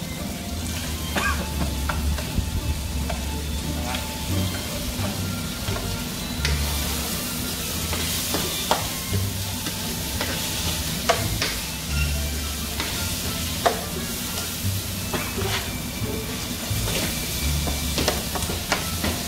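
Food frying and sizzling in a pan on an induction hob while a spoon stirs it, with frequent short clicks and scrapes of the spoon against the pan. The sizzle grows louder about six seconds in.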